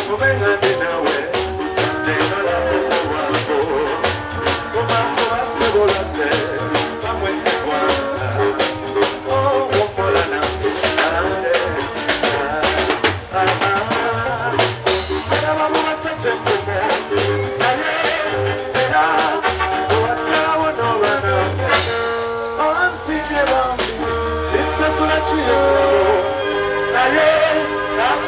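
Live band music: a male singer over electric guitar, a low bass line and a drum kit keeping a steady beat. The drums mostly drop out about three quarters of the way through while the singing and instruments go on.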